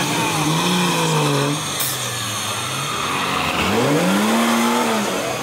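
Off-road competition buggy's engine revving up and down as it crawls over a steep dirt bank, with a sharp rise in revs about three and a half seconds in that falls away again near the end.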